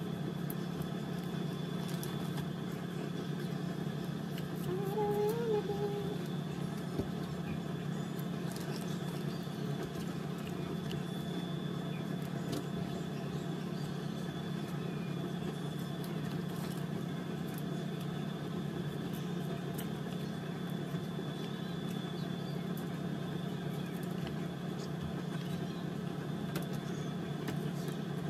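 A steady mechanical hum with a thin, high, constant whine above it, and faint light clicks. About five seconds in there is a short wavering voice-like sound.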